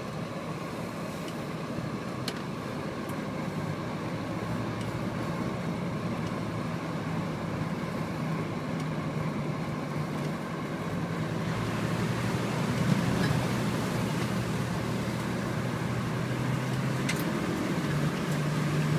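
A car's engine and road noise, heard from inside the cabin while driving. The engine hum gets louder a little past halfway through and again near the end.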